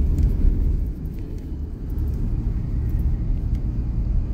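Steady low rumble of a car, heard from inside its cabin, with a few faint clicks in the first second or so.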